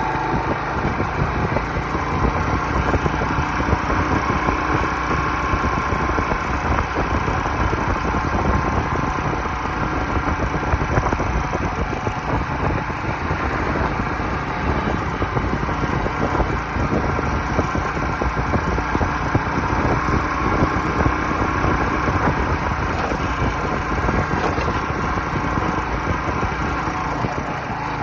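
Motorcycle engine running steadily as the bike is ridden, with wind noise over it.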